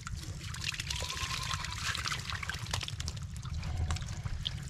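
Muddy water pouring and trickling as it is scooped and tipped from metal bowls in shallow pond mud, with small splashes and clicks.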